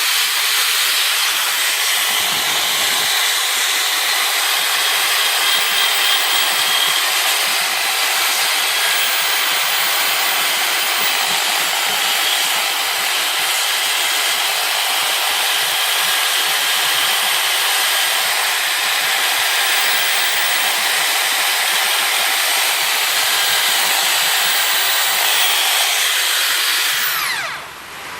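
Power-driven wire brush running steadily against an engine valve, scrubbing carbon deposits off it. It cuts off near the end.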